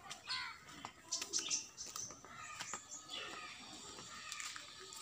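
Small birds chirping in short, high calls, most of them in the first two seconds, over faint outdoor background sound.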